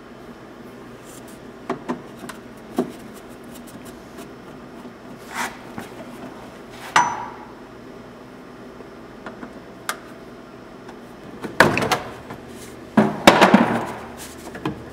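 Hand-tool and parts-handling noises during disassembly: scattered single clicks and knocks, then louder clattering and scraping in the last few seconds.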